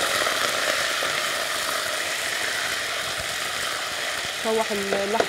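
Cubed meat sizzling steadily as it sears in hot fat in a pot, being stirred. The strong sizzle is the sign of the meat hitting the hot oil at high heat.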